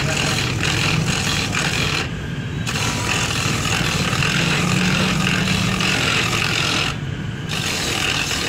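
Electric coconut grater running, its spinning grating drum scraping the flesh out of a half coconut shell pressed against it, a steady motor hum under a harsh grinding rasp. The grinding drops out briefly twice, about two seconds in and again near seven seconds, leaving only the motor.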